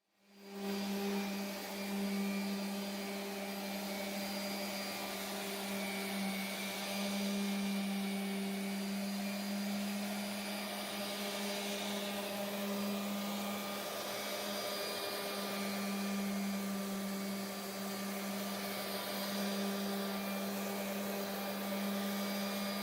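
An electric motor-driven machine running steadily: a constant hum with a dense airy hiss over it, unchanging in speed.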